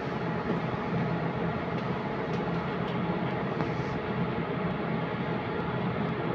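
Cabin noise inside a moving electric trolleybus: a steady rumble of tyres and running gear with a faint, even whine from the drive.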